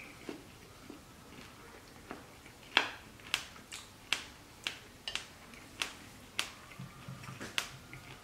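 Close-up chewing of a slice of buttered, slightly dry homemade bread, with a run of sharp wet mouth clicks roughly every half second from about three seconds in.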